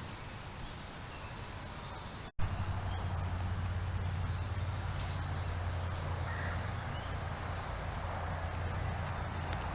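Outdoor ambience: a steady low hum with faint, short, high chirps from birds or insects. The sound cuts out for an instant about two seconds in, and the hum is louder afterwards.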